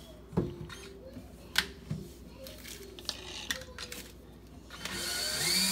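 Metal hand tools clinking and tapping a few times. Near the end a power drill spins up and runs steadily.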